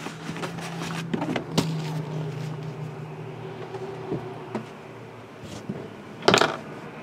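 Shrink-wrapped trading-card boxes being handled: light plastic-and-cardboard clicks and rustles as one box is slid off a stack and laid on the table, then one short, loud rustle or knock about six seconds in. A steady low hum runs underneath and fades out after about four seconds.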